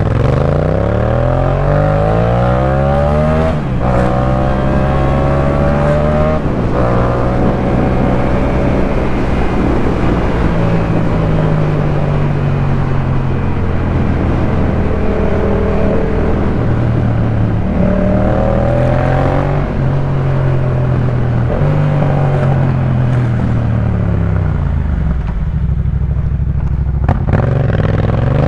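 Yamaha MT-07 689 cc crossplane parallel-twin engine through a Jeskap K4 full aftermarket exhaust, heard from the rider's seat. It accelerates hard through the gears with shifts about three and a half and six and a half seconds in, then rolls on and off the throttle at cruising revs. Near the end it drops to low revs and then starts pulling away again.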